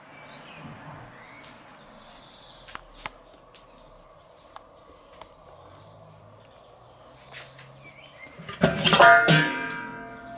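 The porcelain-enamelled steel lid of a Weber kettle grill clanks against the kettle about nine seconds in and rings out with a metallic, bell-like tone that dies away. Before it there are only faint small clicks.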